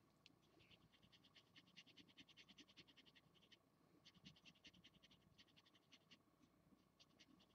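Felt-tip marker scratching on paper in rapid short colouring strokes, faint: a quick run of strokes, a brief pause about three and a half seconds in, then another run.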